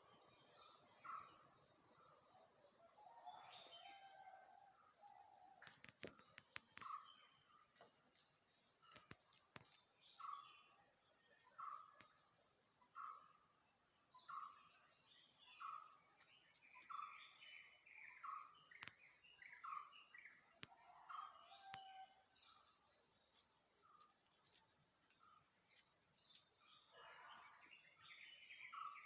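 Faint birdsong: one bird repeats a short note about once a second among other chirps, over a steady high-pitched trill. A few faint clicks sound in the first half.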